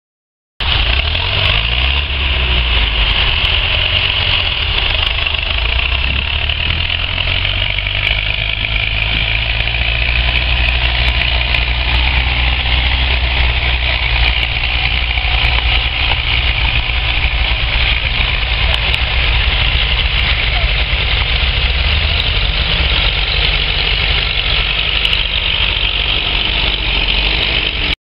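Ford 3910 tractor's three-cylinder diesel engine running steadily under load while pulling a three-furrow plough. The sound cuts in abruptly about half a second in.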